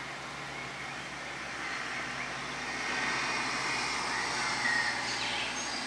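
Small airplane flying overhead: a steady drone that swells towards the middle and eases off near the end.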